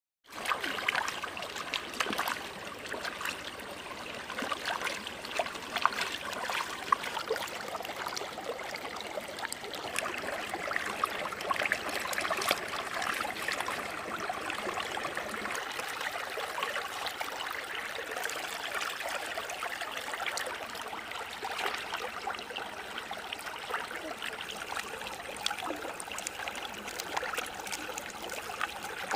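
Shallow stream running over rocks, a steady trickling rush of water, with many small clicks and splashes mixed in.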